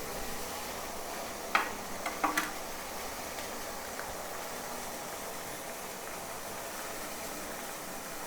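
Water with herbs heating in a stainless steel pan, a steady hiss, with a few sharp clicks about one and a half to two and a half seconds in.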